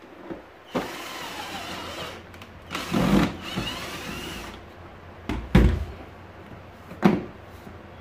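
Cordless electric screwdriver driving screws into a vacuum cleaner's plastic housing: two runs of motor whirring, the second louder with its pitch sliding up and down. Then a few sharp knocks.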